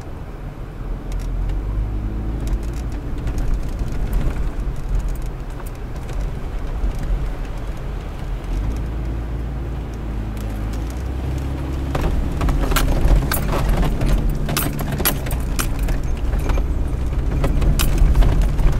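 Off-road vehicle's engine running at low speed with a steady low drone as it crawls over a rocky wash. From about twelve seconds in, a clatter of rattles and knocks joins it as the vehicle jolts over the rocks.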